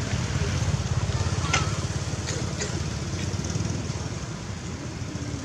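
Steady low rumble of a motor engine running, with a few short sharp clicks between about one and a half and three seconds in.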